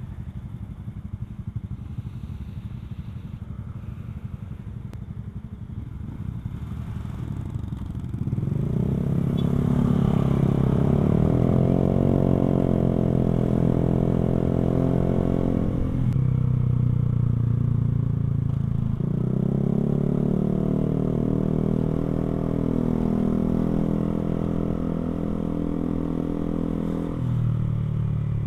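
Motorcycle with an aftermarket NOB1 exhaust running under way, low and steady at first, then accelerating about eight seconds in with the exhaust note rising and holding. It drops sharply at a gear change about halfway through, climbs again, and eases off near the end.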